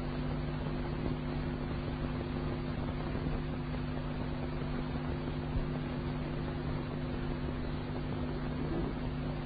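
Steady hiss with a low, even hum underneath, the background noise of an old archival recording during a pause in the Quran recitation.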